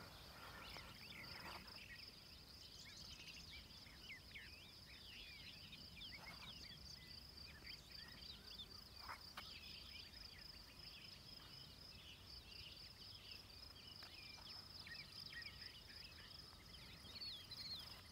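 Faint outdoor ambience: a steady, high, finely pulsing insect trill, with many short bird chirps over it.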